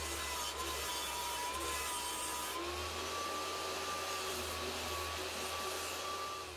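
Table saw running while a wooden board is pushed slowly across the blade at an angle, scraping out a shallow cove cut one blade-height pass at a time. A steady motor whine and hum sit under the grinding hiss of the blade in the wood, and the sound stops near the end.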